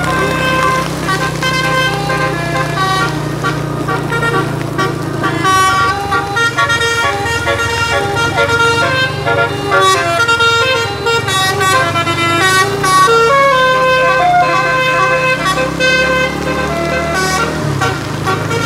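Bus 'telolet' basuri musical horn playing a long run of quick melodic notes, several pitches at once that step up and down like a tune, over the low steady hum of the bus engine.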